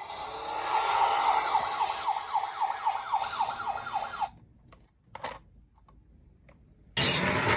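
Emergency-vehicle siren in a fast yelp, its pitch sweeping down about four times a second, cutting off about four seconds in. A few faint clicks follow, then a loud rushing noise starts suddenly near the end.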